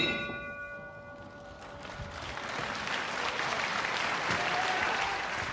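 A ring bell struck once, its tones ringing out and fading over about two seconds. Then the audience applauds, growing louder and holding steady.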